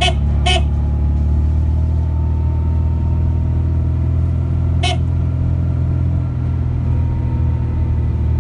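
Vehicle engine and road noise droning steadily inside a moving car's cabin. Two short horn toots come near the start, about half a second apart, and another about five seconds in.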